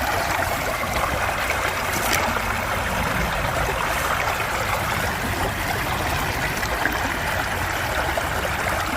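Stream water flowing steadily, an even rushing sound.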